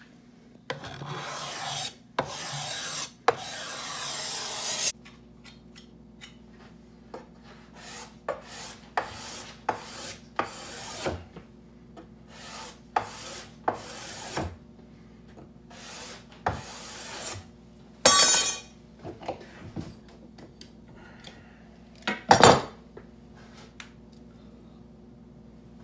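Hand tool rasping along a wooden bow stave in long, even strokes as the limbs are shaped down. After a cut come shorter filing strokes at the bench, with two louder scrapes later on.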